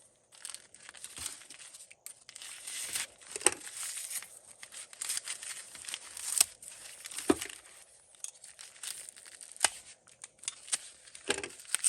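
Paper wrapping being torn and crumpled by hand as a parcel is unwrapped: irregular rips and crinkles with a few sharper tears.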